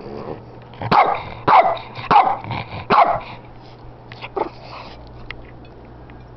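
Shih tzu barking four times in quick succession, then once more, more weakly, a little later, demanding the hamburger it is being teased with.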